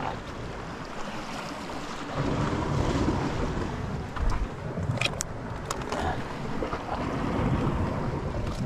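Sea water sloshing around a small boat, with wind buffeting the microphone, and a few sharp knocks about five seconds in.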